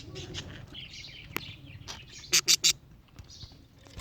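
Pet budgerigars chattering and chirping, with one sharp click and then three loud, short sounds in quick succession about halfway through.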